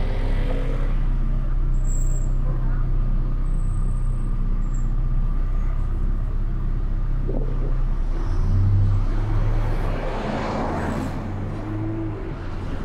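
Car engine and road noise while driving slowly in city traffic. The engine tone strengthens about eight seconds in, followed by a louder passing rush.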